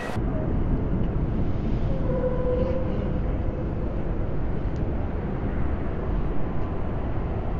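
Busy city street traffic with a steady low rumble, a faint whine rising out of it for about a second some two seconds in.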